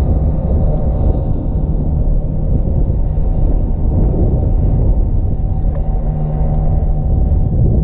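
Fishing boat's outboard motor running steadily, a loud low rumble with a constant pitch.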